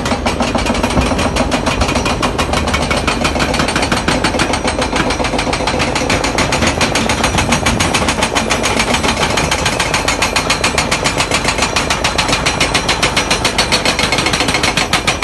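Excavator-mounted Olimpa hydraulic breaker hammering rock, a rapid, even train of hard blows that keeps up without a pause.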